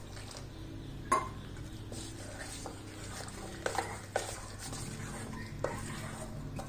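A metal spoon stirring thick chana dal batter in a stainless-steel bowl, with a few sharp clinks of the spoon against the bowl.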